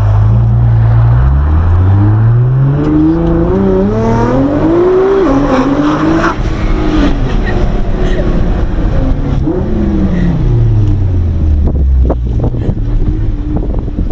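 Nissan GT-R R35's twin-turbo V6 from inside the cabin: idling, then revving up hard as the car accelerates, with a brief dip at a gear change about five seconds in. It then winds down as the car slows and settles back to idle, with a few knocks near the end.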